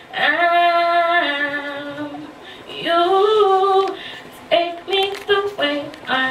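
Female solo singing voice: a long held note that steps down and fades, a second held phrase about three seconds in, then several short notes near the end.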